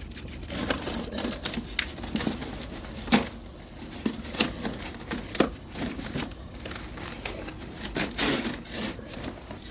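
Irregular clicks, light knocks and crinkling of cardboard and small bits of fuel being handled while a small fire is rebuilt and relit.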